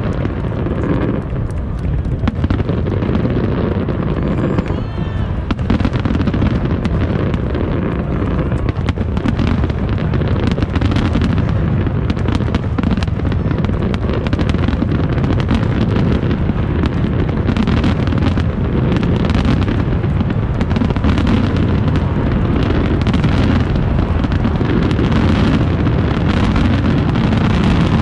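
Fireworks display: aerial shells bursting in rapid, overlapping succession, many bangs over a continuous low rumble with no break.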